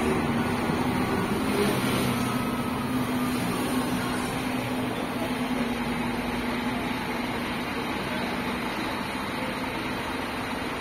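Scania K380 coach's diesel engine running as the bus pulls away at low speed, a steady engine note that slowly fades as it moves off.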